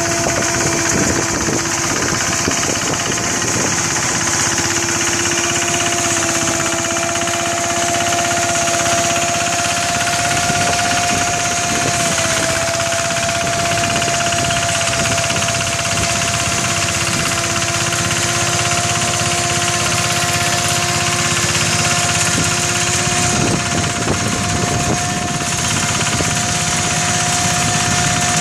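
Mini rice threshing machine running steadily: an engine drone with a constant rattle and a steady whining tone.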